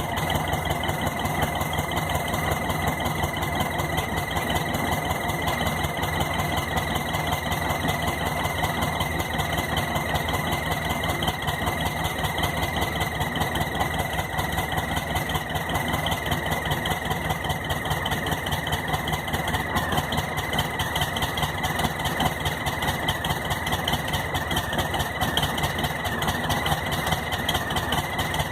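Volkswagen Beetle's air-cooled flat-four engine idling, with a steady high-pitched whine like a cricket over the running. The whine is air being sucked in at the base of a loose carburettor.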